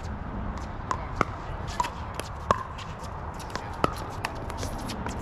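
Pickleball paddles striking a plastic ball during a rally: a run of about half a dozen sharp, pitched pocks at uneven intervals, some fainter than others, with the scuff of shoes on the court between them.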